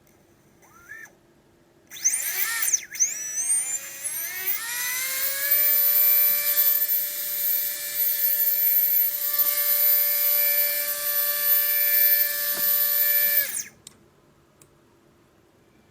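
Readytosky 1804 brushless drone motor spinning up with a rising high whine, holding a steady high-pitched whine for about eight seconds, then cutting off suddenly. The uploader blames the motors for bad bearings and heavy vibration.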